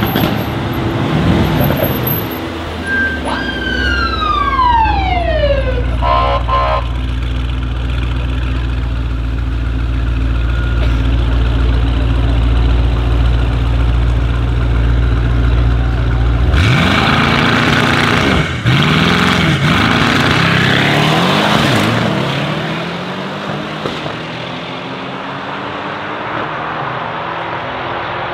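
Two Mercedes-AMG E63 S sedans with twin-turbo 4.0 L V8s, one a Brabus 800, idling at a drag-strip start line with a deep steady rumble. About sixteen seconds in they launch at full throttle, engine pitch rising and breaking at each upshift, then fade as the cars pull away. About three seconds in, a siren-like tone falls in pitch for a couple of seconds.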